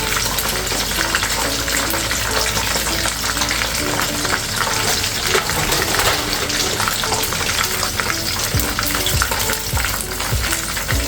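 Rice-flour-coated chicken wings deep-frying in hot oil: a steady, dense crackling sizzle.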